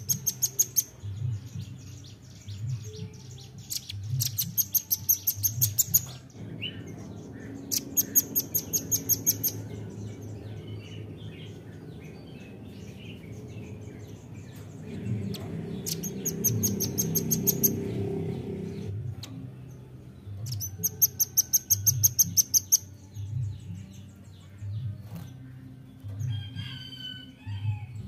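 Velvet-fronted nuthatch calling: about five runs of rapid, very high-pitched repeated notes, each lasting a second or two, over a low background rumble.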